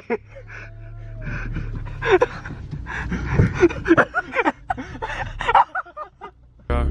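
Indistinct voices inside a car cabin over the low steady hum of the car's engine. Near the end the voices drop away and music starts suddenly.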